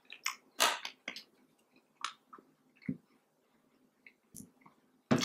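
A plastic syrup squeeze bottle: its flip cap clicking open, then a few scattered short clicks and squelches as syrup is squeezed out onto a pancake.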